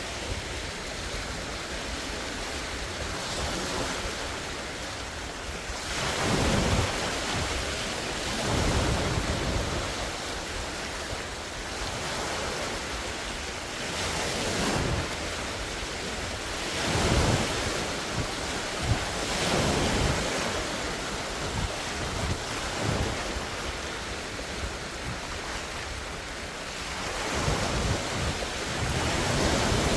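Large wind-driven lake waves breaking and splashing in a steady rush, a wave surging louder every few seconds. Wind buffets the microphone.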